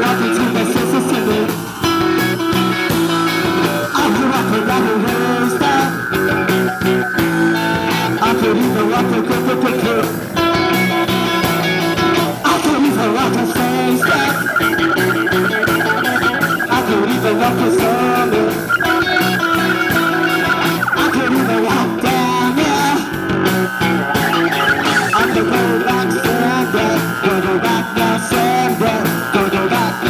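Live rock band playing, electric guitars to the fore over a steady drum beat.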